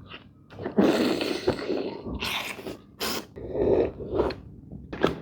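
Close-miked eating noises from someone eating pork soup: several loud, noisy mouth sounds with short gaps between them.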